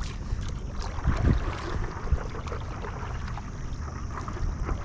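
Wind rumbling on the microphone, with a few small knocks.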